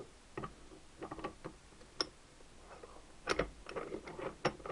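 Irregular metallic clicks and taps of steel gears and a selector fork being worked by hand into a Triumph 4-speed gearbox shell, as the fork's roller is wiggled into the cam plate slot. The loudest is a cluster of clicks with a dull knock about three seconds in.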